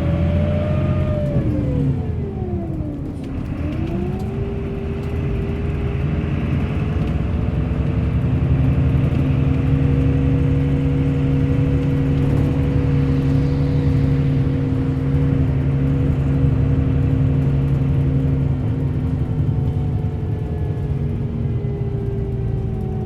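Bus engine running on the move: its pitch drops sharply about a second in, climbs back within a couple of seconds and then holds steady, falling off again near the end.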